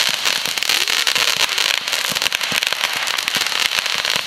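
Multi-shot consumer fireworks cake firing: a dense, continuous run of rapid crackles and pops as several shots go up at once.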